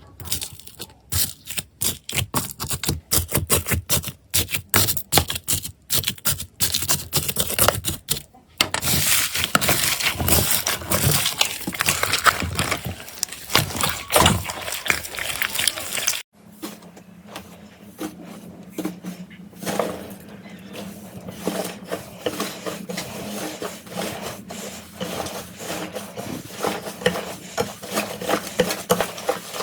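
Slime being squeezed, poked and stretched by hand: rapid crisp clicks and pops, thickening into a dense crackle. About halfway through the sound cuts abruptly to a quieter clip with a steady low hum under softer rapid clicking.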